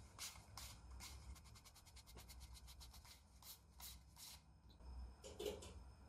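Near silence with faint rubbing and light clicks of clear cast-epoxy parts being handled and turned in the hands, including a quick run of soft ticks about halfway through.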